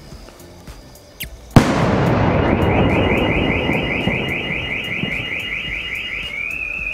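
An aerial sky-shot firework shell gives a short whistle, then bursts with one sharp, loud bang about a second and a half in, followed by a rumbling echo. Shortly after the bang a car alarm starts, chirping rapidly about five times a second, and switches to a slower rising-and-falling tone near the end.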